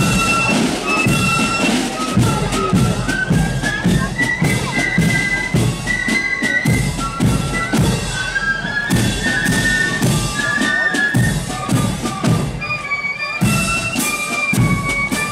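Marching flute band playing a tune: flutes carrying the melody over a steady beat of marching drums, the drumming briefly dropping out near the end before coming back in.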